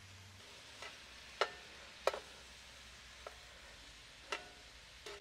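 Metal tongs clinking against a cast iron skillet as sliced peppers and onions are tossed, about six sharp, irregular clinks over a faint steady sizzle of the vegetables frying.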